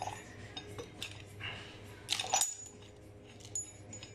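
Steel tools and parts clinking and knocking against each other in a few separate metallic strikes with a short ringing after them, the loudest just after two seconds in.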